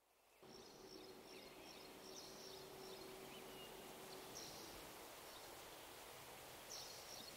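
Faint woodland ambience with small, high bird chirps now and then.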